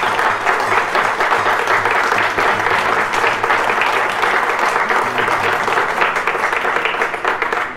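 A room full of people applauding: sustained, dense hand clapping that fades off near the end.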